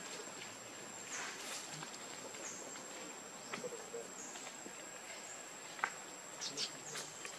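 A steady high-pitched insect drone over a soft hiss of forest background, with scattered short clicks and rustles that gather near the end.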